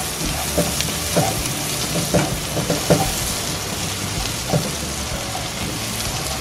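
Sliced onion and garlic sizzling in hot melted butter in a pan, stirred with a spatula that scrapes against the pan every second or so.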